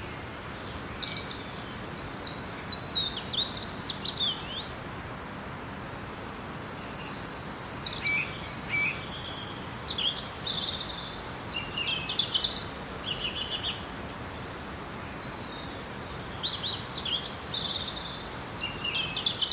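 Daytime forest ambience: several songbirds chirping and trilling in bursts, with a lull of a few seconds in the middle, over a steady soft background hiss.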